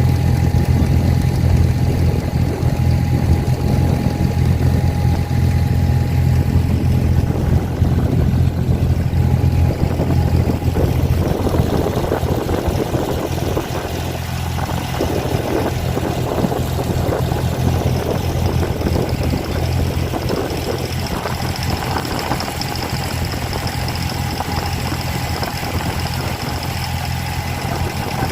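Abra water taxi's boat engine running steadily with a low hum, which grows weaker about halfway through.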